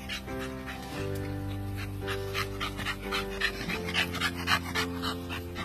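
American bully dogs panting in quick, short breaths over background music with long held notes.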